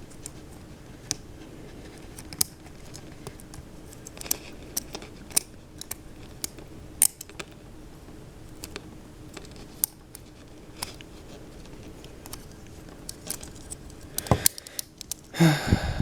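Small metal clicks and scrapes of hand tools working at a pin in a folding knife's frame, scattered sharp ticks over a faint low hum, the pin not coming free. A brief louder burst near the end.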